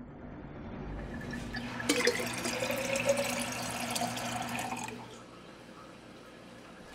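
Kitchen faucet running water into a glass, the pitch rising as the glass fills; the water stops about five seconds in.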